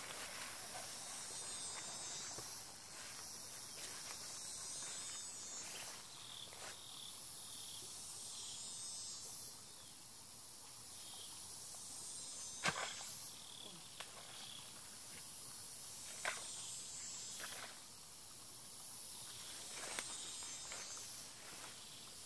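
Steady high-pitched buzzing of insects in the vegetation, with one insect chirping about twice a second through the middle. Footsteps and rustling through the undergrowth, with three sharp snaps, the loudest about halfway through.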